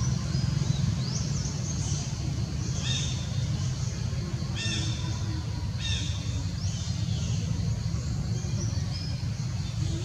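Several short, high-pitched animal calls, the clearest three coming about 3, 4.5 and 6 seconds in, over a steady low rumble.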